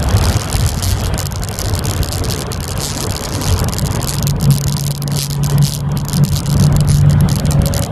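1990 Mazda Miata's 1.6-litre four-cylinder with aftermarket header and exhaust, heard from inside the cabin at track speed. It runs with a low drone as the car slows for a corner, then holds a steady note for about three seconds through the turn.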